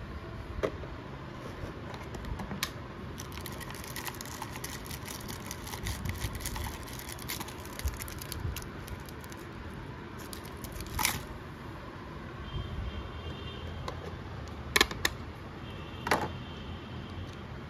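Hands handling plastic takeaway food containers and crinkling foil-wrapped candies: a run of small crackles and clicks, then three louder knocks in the second half, over a steady background hum.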